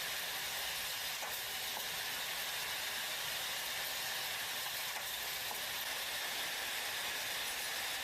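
Steady, even hiss of factory machinery on a battery production line, with a few faint ticks.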